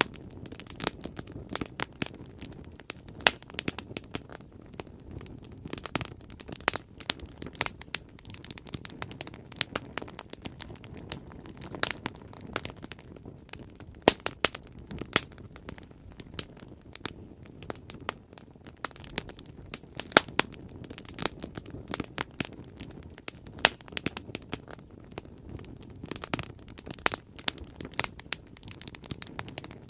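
Wood fire crackling and popping steadily, with irregular sharp snaps over a low, soft rush of burning.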